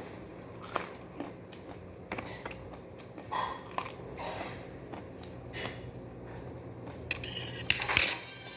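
Eating utensils clicking and clinking against dishes in short, scattered taps, the loudest cluster near the end, over a low steady hum.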